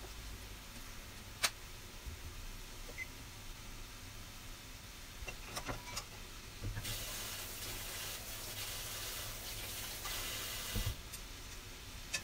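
Broccoli and cauliflower florets boiling in a pan of water: faint bubbling and a few light clicks, then a steady hiss that starts suddenly about halfway through and stops about four seconds later.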